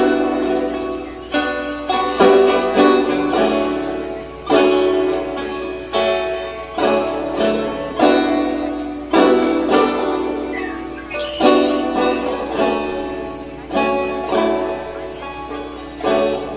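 Background music: a melody of plucked notes, each struck and left to ring and fade.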